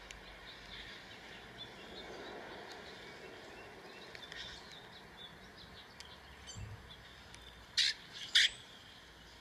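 Small birds chirping faintly from a bird video playing on a tablet's speaker. Near the end there are two short, sharp, louder sounds about half a second apart.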